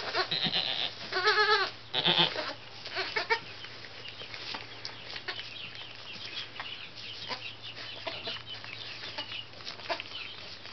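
Goat bleating, a few short wavering calls in the first two and a half seconds, then soft rustling and small knocks in the straw bedding as the newborn kid struggles to its feet.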